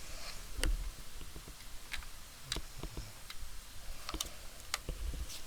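Light, irregular clicks and taps of hard plastic being handled at a workbench, about a dozen over a few seconds, with a couple of low bumps: the reglued laptop charger plug being turned over and set down.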